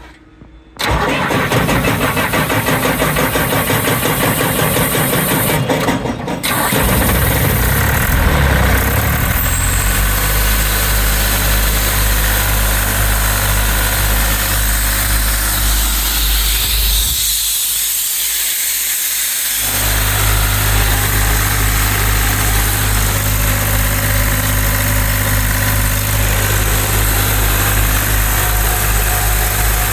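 John Deere 3179 three-cylinder diesel engine being cranked by its starter about a second in, catching after roughly six seconds and then running steadily.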